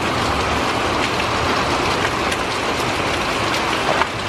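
Steady rain falling and running off as a thunderstorm eases, a continuous rushing hiss with scattered drop ticks.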